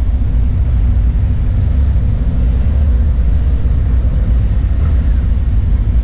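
Steady, loud low rumble of wind buffeting the microphone.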